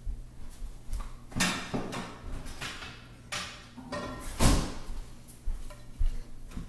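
Several separate knocks and clunks of a cabinet drawer being opened and shut and plates being handled.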